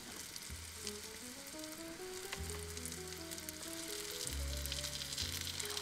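Food sizzling and crackling in a frying pan on a camping stove, under soft background music: a simple melody of short notes over low bass notes.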